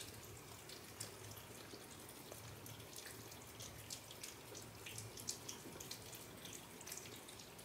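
Faint wet smacking, licking and small clicks of several cats eating soft raw food from paper plates, over a low steady room hum.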